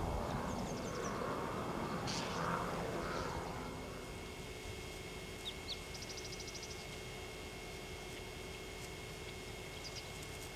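Open-air ambience: a broad rushing noise that fades away over the first four seconds, then faint high chirps of small birds and a short, fast, even trill a little past the middle.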